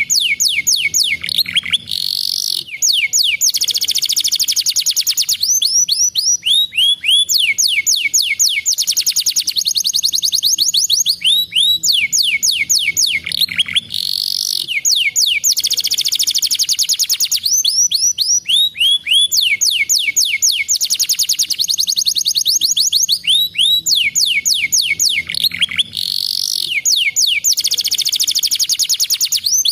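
Domestic canary singing a long, unbroken song of rapid high trills, each phrase a fast run of repeated sweeping notes lasting a second or two before switching to the next. A few rising whistles break it up, and the same sequence of phrases comes round about every twelve seconds.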